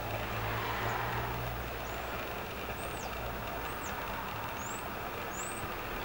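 Steady rumble of vehicle traffic, with six short, thin, high bird chirps that arch or rise in pitch, about one a second.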